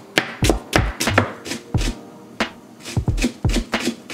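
Kitchen knife chopping vegetables on a wooden cutting board: sharp, irregular knocks a few times a second, over background music with a steady beat.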